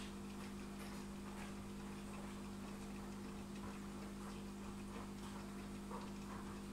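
Steady low hum of aquarium equipment, with faint irregular clicks and ticks of water.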